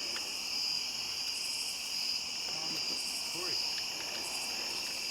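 Steady night chorus of crickets chirping, with a faint distant voice briefly about halfway through.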